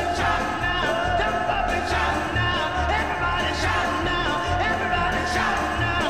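Hockey goal song: rock music with a sung vocal over a steady beat.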